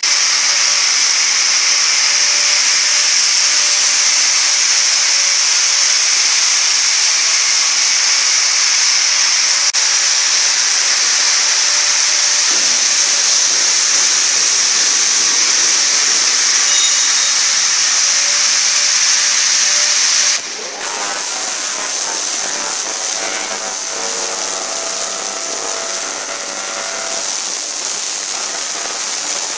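Ultrasonic cleaning machine running with a loud, steady high-pitched hiss. About two-thirds through, the sound changes abruptly to an even higher hiss with faint steady tones underneath.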